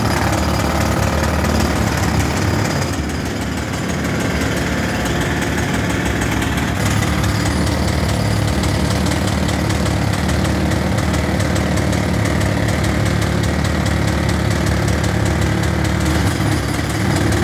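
Jackhammer breaking up street pavement: a rapid, steady hammering that goes on without a break.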